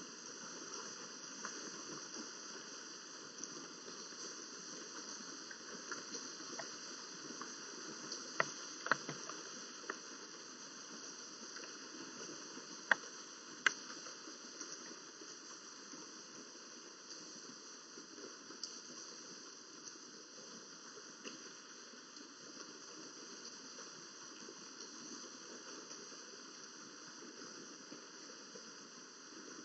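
Steady hiss of background noise, with a few sharp clicks: two about eight seconds in and two more about thirteen seconds in.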